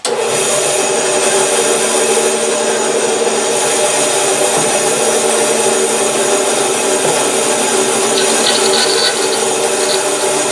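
Bandsaw running and ripping a pear-wood log: a loud, steady rasping noise over the motor's hum. It starts suddenly at full level.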